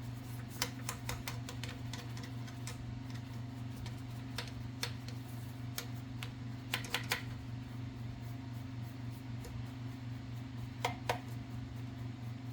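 Scattered light clicks and ticks of Olivetti typewriter carriage parts being handled, in a quick cluster at first and then in ones and pairs. A steady low hum runs under them.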